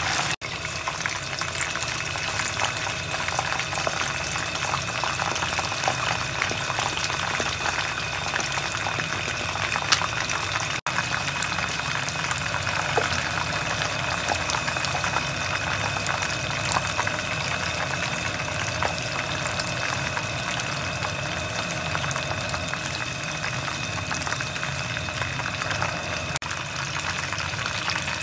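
A whole chicken frying in hot oil in a wok: the oil bubbles and sizzles steadily with dense fine crackling, over a faint steady high tone.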